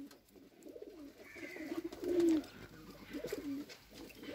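Domestic pigeons cooing: a run of low, repeated coos, the loudest about two seconds in.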